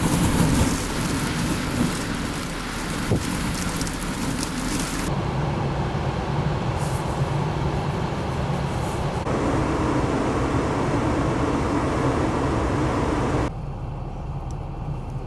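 Blizzard wind noise over running vehicle engines, with a steady low hum, in several short clips that change abruptly about every four to five seconds.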